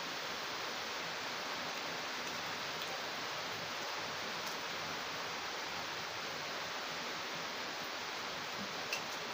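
Steady, even hiss of background noise, with a few faint clicks from chewing and handling food, one slightly louder near the end.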